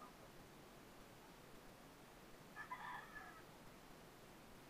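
Near silence, broken by one faint, short animal call a little over halfway through.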